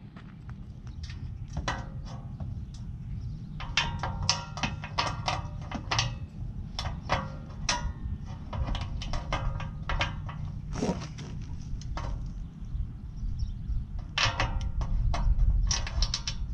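Hand ratchet clicking in quick runs as the fog-light mounting nuts on a steel bull bar are worked loose, with a steady low rumble underneath.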